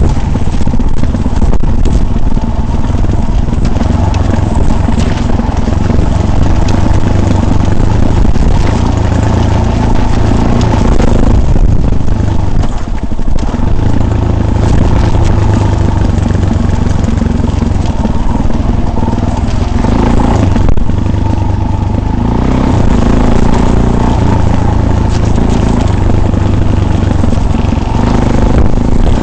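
Vehicle riding off-road: a loud, steady rumble with rattling and clatter from the rough track, dipping briefly about halfway through.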